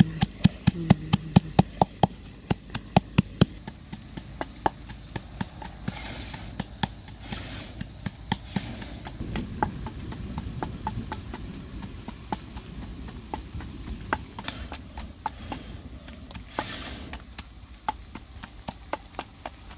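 Wooden pestle pounding in a wooden mortar, crushing red chilies and garlic into a paste, a steady run of dull knocks at about three to four strokes a second. The knocks are loud for the first few seconds, then fainter.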